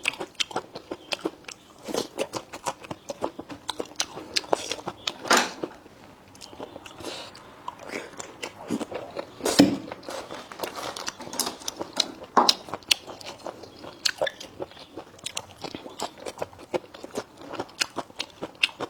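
A person biting and chewing food with the mouth close to the microphone: a continuous run of irregular small clicks and crunches.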